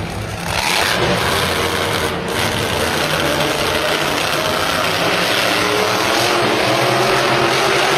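Monster truck's supercharged V8 running hard under load, loud and steady and rising slightly in intensity as it drives.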